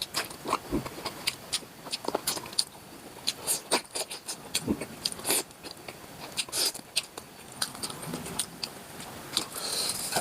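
Close-up chewing of cooked octopus: irregular wet clicks and smacks of the mouth, many to the second.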